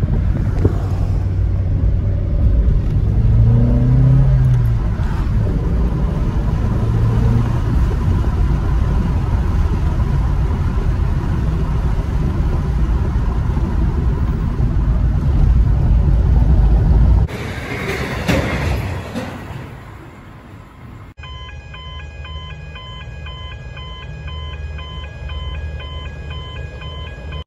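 Inside a moving car's cabin: steady engine and road rumble, with the engine note rising as the car accelerates a few seconds in. Late on the sound cuts to a quieter outdoor bed with a pulsing, repeating multi-tone signal.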